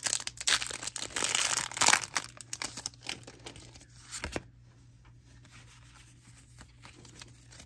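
Pokémon TCG booster pack's foil wrapper being torn open and crinkled in the hands, a dense crackle for about the first three seconds. A single light knock follows a little after four seconds in.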